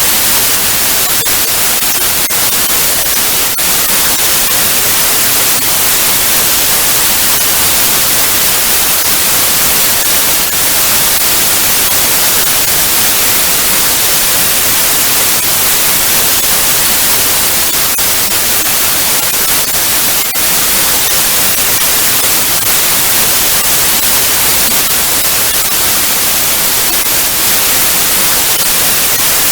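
Television static: a loud, steady hiss, brightest in the highs, with faint scattered crackles.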